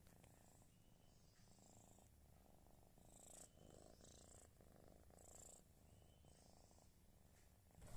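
A tabby cat purring faintly, in soft pulses that come and go.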